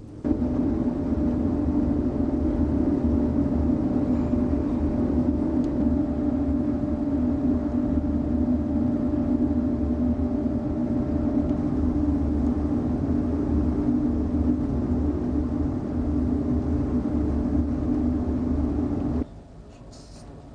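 Ship's machinery running: a steady low drone with a faint steady hum above it. It cuts in abruptly at the start and cuts off abruptly about a second before the end.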